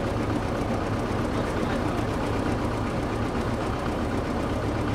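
Heavy diesel machinery running steadily: a constant low engine drone with no change in speed.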